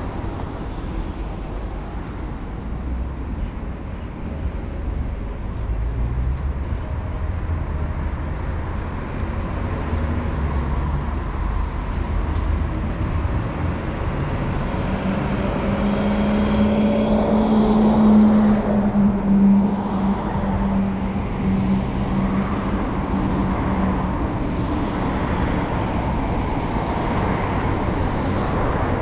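Road traffic along a city street: a steady rumble of cars, with one louder vehicle passing close about halfway through, its steady hum swelling and then fading.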